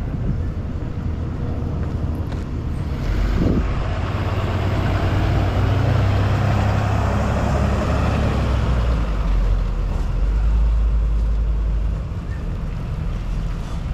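A motor vehicle passing close by: a low engine rumble and road noise that swell about three seconds in, hold for several seconds, then fall away near the end.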